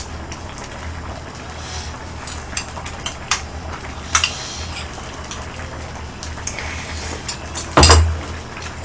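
Wide pot of kimchi pork-bone stew simmering on a portable gas burner, a steady bubbling under light clicks of chopsticks and spoon against a bowl. There is a louder knock near the end.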